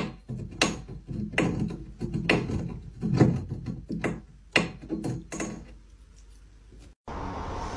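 A cat gnawing and rubbing its mouth on a metal table leg: irregular sharp clicks and knocks, about two a second, that stop about six seconds in.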